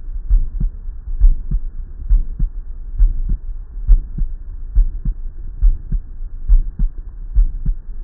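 A human heartbeat with an ejection systolic murmur. Regular paired low thumps, the first and second heart sounds, repeat a little under once a second, with a soft whooshing noise in systole between them.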